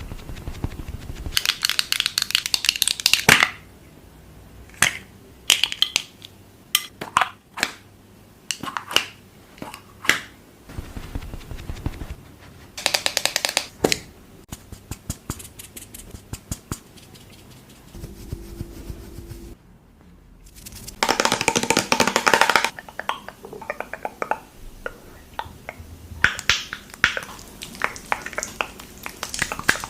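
ASMR handling of skincare product containers: scattered sharp taps and clicks, broken by a few short rustling, hissing bursts.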